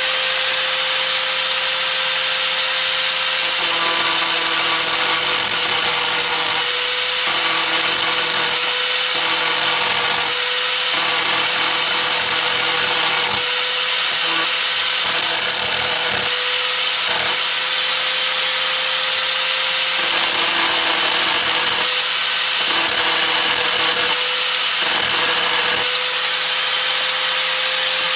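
Small handheld electric power tool running with a steady high whine. It grows louder and coarser in repeated stretches of a second or two as it is pressed into the caster parts.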